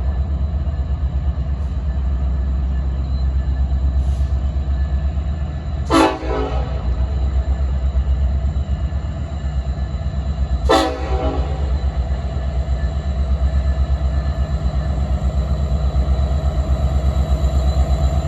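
EMD SD70M-2 diesel locomotive (two-stroke V16) running with a steady low rumble, broken twice by a short, sharp, sneeze-like blast about five seconds apart. Near the end the engine note grows louder and more evenly pulsing.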